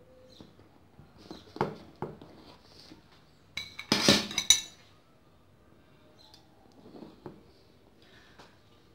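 Kitchen utensils and dishes clinking and tapping on glass as a glazed panettone is cut and served, with a knife, a cake server and a plate knocking against the glass tabletop. Scattered taps come first, a loud burst of clatter comes about four seconds in, and a few lighter taps follow.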